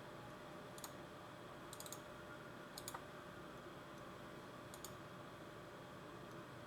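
Faint sharp clicks from someone working a computer while it reboots after a blue-screen crash. They come in short clusters of one to four, about a second apart, over a steady low hum.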